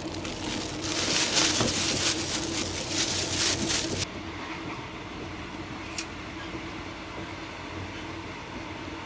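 Running noise inside a sleeper train carriage: a steady rumble with a low hum. About four seconds in the sound turns abruptly duller and quieter, and a single sharp click comes about two seconds later.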